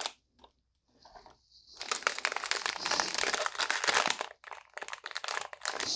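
A foil blind-box bag crinkling as it is handled in the fingers, starting about two seconds in, dense for a couple of seconds, then in scattered crackles.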